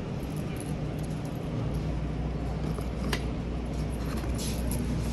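A bunch of keys jangling in a hand, with a few light clicks and clinks, over a steady low hum.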